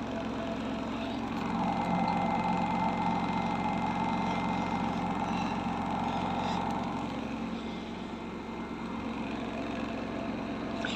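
Samsung washing machine spinning an unbalanced load: a steady motor-and-drum hum with the machine shaking. It swells louder from about two seconds in and eases off a little near the end.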